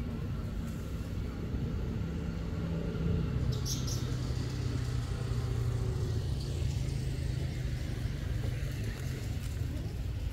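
Steady low engine rumble, its pitch dropping slightly about three seconds in, with a brief crackle near four seconds.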